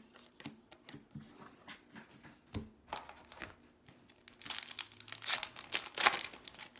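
Baseball card pack wrapper crinkling and tearing as it is opened, with the loudest crinkling about two-thirds of the way in.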